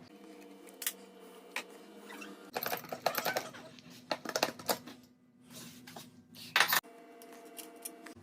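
Velo Solex 3800's small two-stroke engine idling with the moped stopped, with irregular clicking and rattling over the steady hum. The clicks come singly at first, then thick and fast for a couple of seconds, with the loudest click near the end. This rattle is the abnormal noise at a standstill that the owner is showing.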